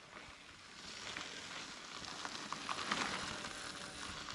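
Faint steady outdoor hiss with a few light clicks.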